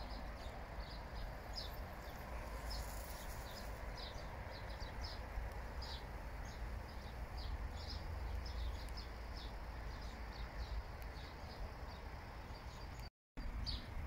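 Small birds chirping, many short high chirps in quick irregular succession, over a steady low outdoor rumble. The sound drops out briefly near the end.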